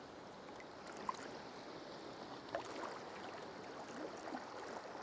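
Sea kayak on the move: water lapping and sloshing against the hull and paddle, with a few brief, faint seabird calls from the cliff colony.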